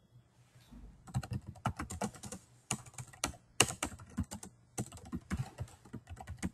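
Typing on a computer keyboard: a quick, uneven run of key clicks that starts about a second in.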